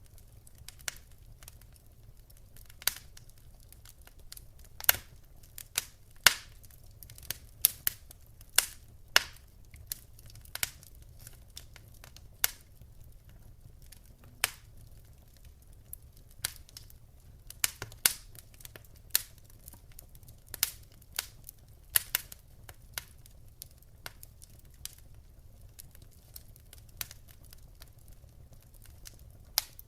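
Wood fire crackling: irregular sharp pops and snaps, one or two a second, over a faint low rumble.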